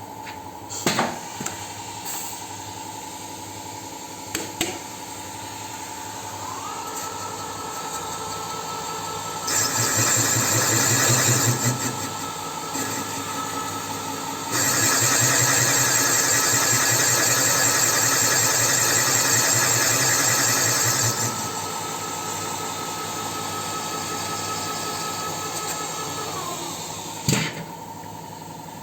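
Boring machine spindle cutting valve-seat pockets in a D-240 cast-iron cylinder head. Over a steady machine hum, a steady whine comes in and later stops. In between there are two spells of loud cutting noise, one about two seconds long and one about six seconds long, with a few clicks.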